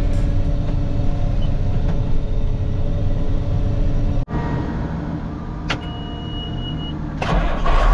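Combine harvesting corn, heard from inside the cab: a steady machine drone. The sound cuts out for an instant about four seconds in, and a steady high beep sounds for about a second shortly after.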